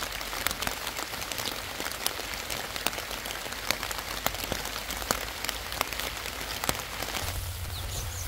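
Steady rain falling on garden leaves and surfaces, an even hiss with many sharp ticks of single drops.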